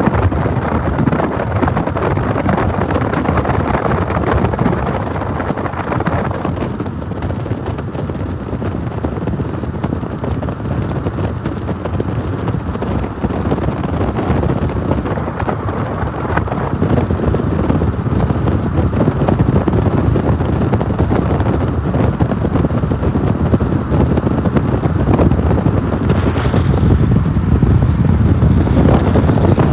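Steady loud rumble of a freight train, mixed with wind on the microphone. It grows a little louder near the end.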